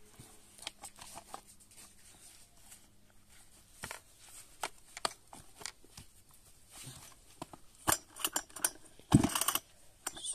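Plastic clicks and knocks as a chainsaw's recoil-starter cover is pressed and seated onto the housing, with a burst of louder rattling clicks near the end.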